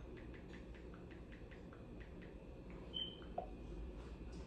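Quiet room with faint, irregular clicks, several a second, and a brief high squeak about three seconds in.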